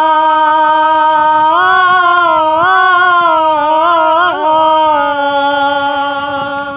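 A man singing a Bengali folk song unaccompanied, drawing out one long held note at the end of a line; the pitch steps up about a second and a half in, wavers briefly, then settles lower.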